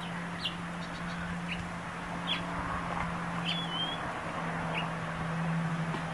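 Small birds chirping outdoors: a handful of short, high chirps about a second apart, one trailing into a brief whistle, over a steady low hum.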